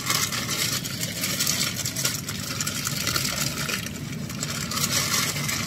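Car engine running, heard from inside the cabin as a steady low rumble, with uneven rustling and hiss on top.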